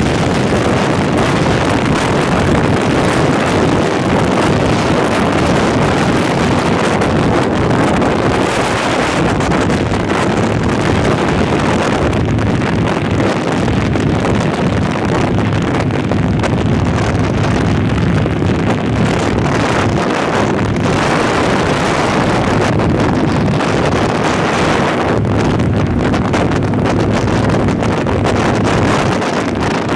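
Heavy wind buffeting the microphone of a cruiser motorcycle at highway speed, with the motorcycle engines running steadily underneath.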